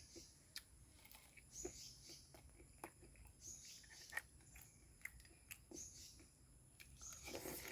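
A person chewing cooked softshell turtle meat: soft wet mouth smacks about every two seconds, with small clicks in between.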